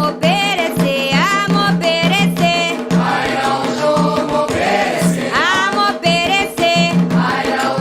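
Candomblé devotional song for Xangô: voices singing a chant over a steady beat of drums and percussion.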